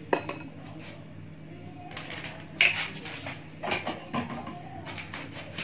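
Wooden chopsticks clicking and knocking against a glass bowl several times, the loudest knock about two and a half seconds in, over a low steady hum.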